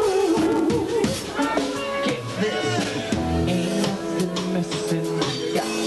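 Rock band playing, with electric guitar and drums.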